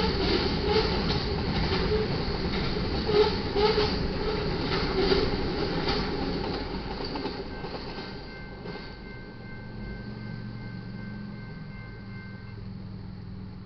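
Freight train's covered hopper cars rolling past at a grade crossing, steel wheels clicking and clattering over the rails, with the loudest knocks in the first half. The sound fades about halfway through as the end of the train goes by.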